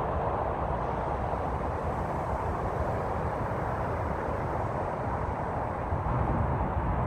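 Steady distant traffic roar, with a low rumble of wind on the microphone.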